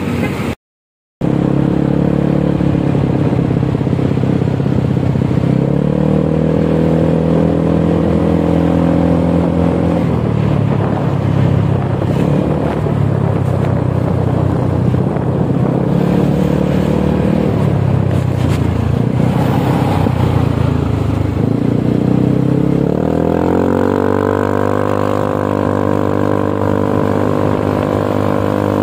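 Honda Scoopy eSP scooter's single-cylinder engine running through a Tsukigi RRGS aftermarket exhaust while being ridden. It has a mellow, bassy note that steps up and down in pitch with the throttle. The sound drops out briefly just after the start, and about 23 seconds in it climbs and holds at a steady higher pitch.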